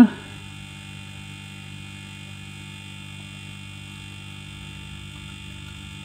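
Two hermetic refrigerator compressors, piped in series as a vacuum pump, running with a steady hum. They are pulling a deep vacuum, at about a fifth of atmospheric pressure and still falling.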